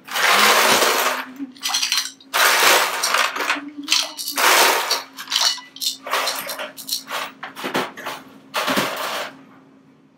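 Ice cubes dropped into a bowl of water, clattering and splashing in repeated bursts.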